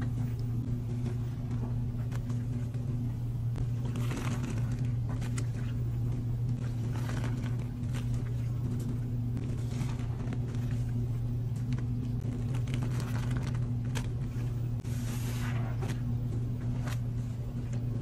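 Top-loading washing machine running with a steady motor hum, while a soapy sponge is squeezed and dunked in the sudsy wash water, giving wet squelching and sloshing every few seconds.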